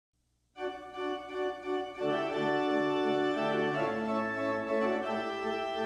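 Organ music starting after a brief silence: held chords with a slowly moving melody, growing fuller about two seconds in as low bass notes join.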